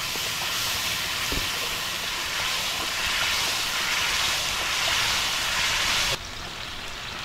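Hot masala sizzling and hissing in a kadhai as water is poured in for the gravy. The hiss is steady and loud, then cuts off suddenly about six seconds in.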